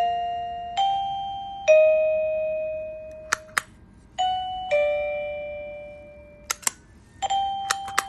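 Electronic doorbell chime playing short ding-dong tunes of bell-like notes that ring and fade, one after another. Two pairs of sharp clicks come in between, about three and a half seconds in and again about six and a half seconds in.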